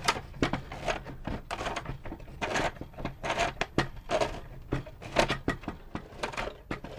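Irregular clicks, taps and knocks of small plastic parts of the Omnibot 2000 tray mechanism being handled and fitted together, over a low steady hum.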